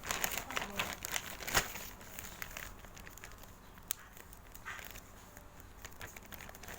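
Handling noise as a squishy toy is picked over and held: rustling and crinkling with scattered light clicks, busiest in the first two seconds, then fainter.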